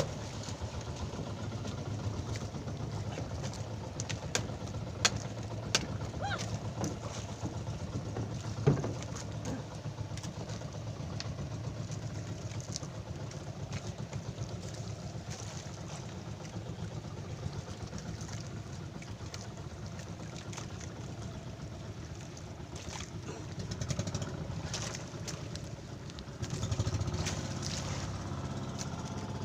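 A small boat's engine running steadily, with a few sharp knocks between about four and nine seconds in and the engine growing louder near the end.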